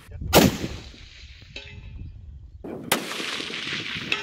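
Ruger Precision Rifle in .308 fired, a loud shot followed by a long rolling echo, then a second rifle shot about two and a half seconds later with the same long echo.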